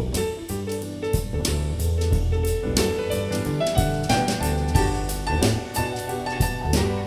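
Soul jazz music: piano chords over a deep bass line, with a drum kit keeping a steady beat.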